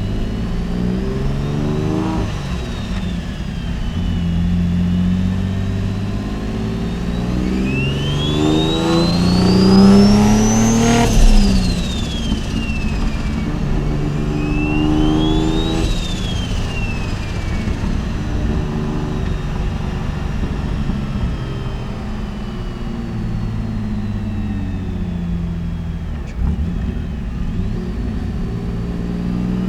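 Big-turbo Mitsubishi 3000GT VR4's V6 under way, pulling hard about a third of the way in, with a high turbo whistle climbing alongside the engine note, then falling away as the throttle comes off. A second, shorter pull and fall follows, then steady running.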